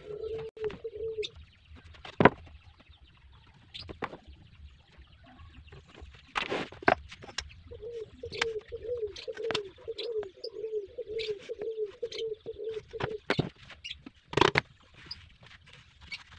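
A dove cooing in a wavering run at the start and again for about five seconds in the middle. Sharp taps and knocks of tools being handled and set down on plywood sheets, two of them louder than the cooing.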